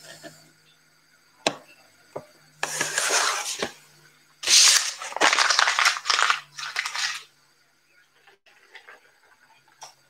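Crinkling, tearing noise of packaging being handled, in two bursts of about one and three seconds, after a single click.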